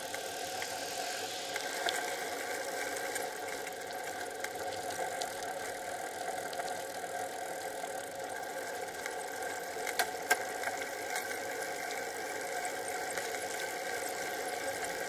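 Steady running noise and rattle of a bicycle ride picked up by a bike-mounted Cycliq camera, with two sharp knocks about ten seconds in.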